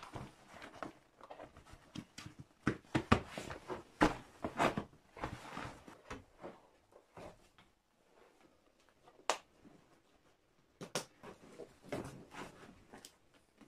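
Rustling and handling of heavy clothing: a winter coat taken off and hung on a wall hook, then a leather apron and protective jacket pulled on, with scattered soft knocks and one sharp click a little past the middle.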